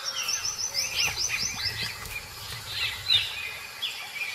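Wild birds chirping: a quick run of high, repeated chirps over the first couple of seconds, then scattered calls.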